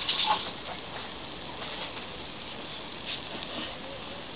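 Hot oil sizzling steadily around egg-coated matzah rolls frying in a stainless steel pan. The sizzle is louder for the first half second, then settles into an even hiss with an occasional pop.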